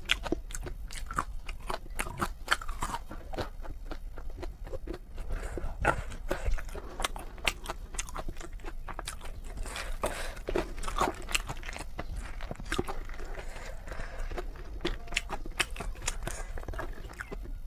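A person chewing and biting into a mouthful of spicy noodles, a dense, irregular run of short crunching clicks.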